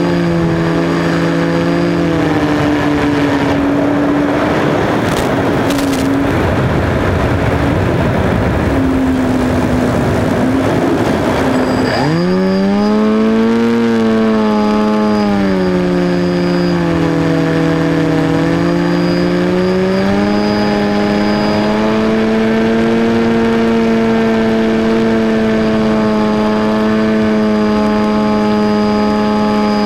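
Wind rushing past an FPV glider's onboard microphone, with the glider's electric motor and propeller running low. About twelve seconds in the motor is throttled up: its pitch jumps sharply, sags, then settles into a steady drone.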